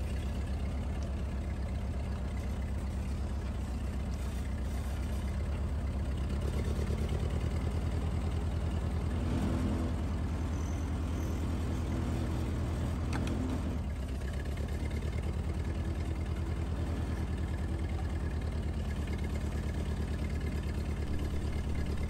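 Ford 8N tractor's four-cylinder engine running steadily under way, heard from the driver's seat, with an even low pulse from its firing.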